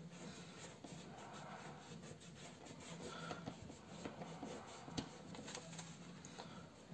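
Faint rubbing and scratching of fingertips on paper, blending oil pastel, with small ticks and one sharp click about five seconds in.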